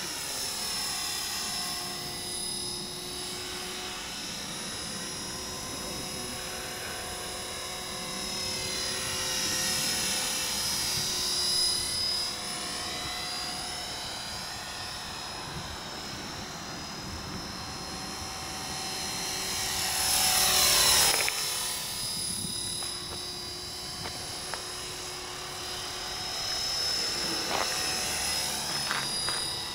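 Electric RC helicopter (eSky Belt CP on a B.A.D. flybarless frame) in flight, its motor and rotor making a steady high whine whose pitch swoops up and down as it passes back and forth. It is loudest on a close pass about twenty seconds in, where the pitch drops sharply.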